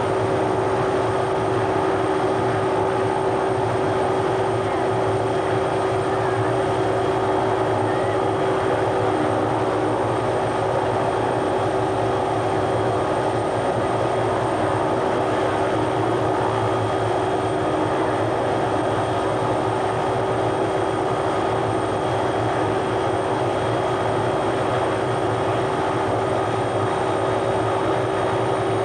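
Small helicopter running on the ground at idle, a steady loud engine and rotor drone with a constant hum and no change in pitch.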